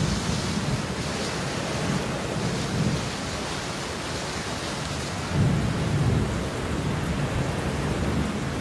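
Steady heavy rain with thunder rumbling low under it. The rumble swells right at the start, briefly about three seconds in, and most strongly about five and a half seconds in.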